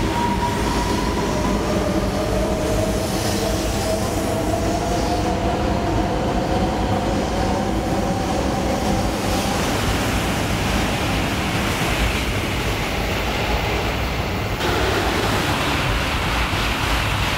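High-speed electric train running at speed, heard from inside a carriage: a steady rumble and rushing noise with a faint whine that slowly rises in pitch. The sound changes abruptly near the end.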